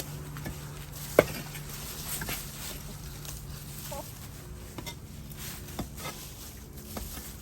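Hand digging in the soil: scattered knocks and scrapes of a digging tool, with one sharp strike about a second in that is the loudest sound.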